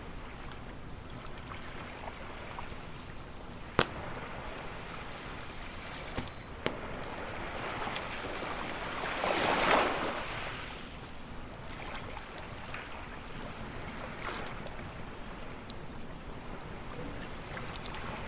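Campfire crackling with a few sharp pops, over the steady wash of ocean surf; about ten seconds in a wave swells in and recedes.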